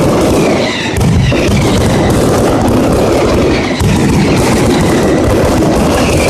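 Mascletà firecracker barrage: a dense, unbroken string of firecracker bangs with faint whistles gliding over it, easing off briefly about a second in.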